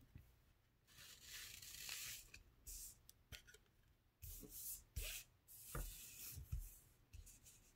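Pokémon trading cards being handled and slid across a playmat: faint rubbing and swishing, with a few soft taps between about four and seven seconds in.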